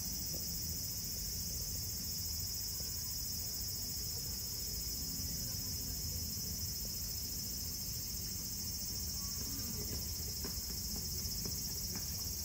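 Steady high-pitched chirring of an insect chorus, crickets or similar, over a low background rumble, with a few faint ticks near the end.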